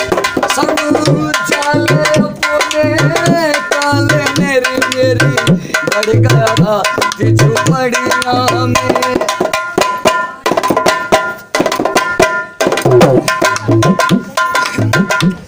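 Dholak, a two-headed Indian barrel drum, played in a lively folk rhythm of deep bass strokes and sharp treble slaps, with a wavering melody line over it.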